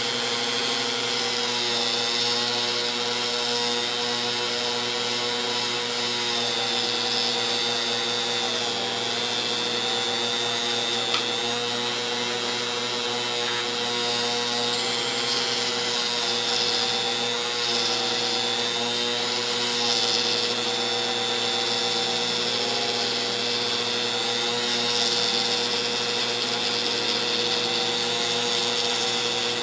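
Rotary tool with a small polishing wheel running steadily at low speed, buffing the clear plastic handle of an S&K screwdriver. Its hum and high whine hold steady, wavering slightly as the wheel is pressed on and eased off. It is kept slow so as not to burn through the plastic.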